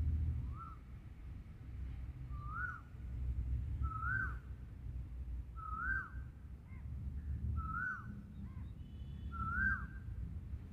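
A bird calling over and over: a short whistled note that rises and then drops, six times at even intervals of just under two seconds, over a faint low rumble.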